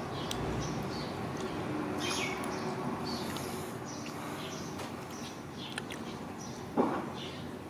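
Scattered short, high chirps over a steady background hiss, with a single sharp knock near the end.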